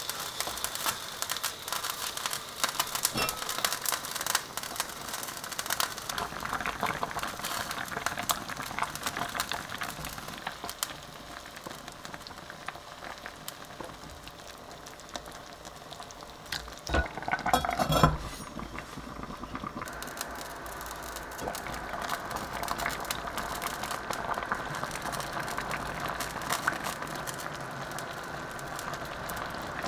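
Kimchi stew boiling hard in an enameled cast-iron pot: steady bubbling and crackling, with sizzling where the broth boils over the rim. A brief louder clatter about seventeen seconds in.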